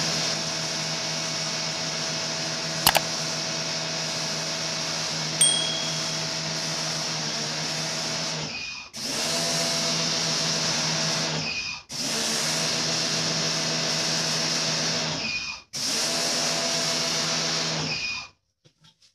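Pressure washer running, its motor humming under the hiss of the water spray as it washes the unexposed photo emulsion out of a screen-printing screen. It cuts out briefly three times, each time for a moment, and stops shortly before the end.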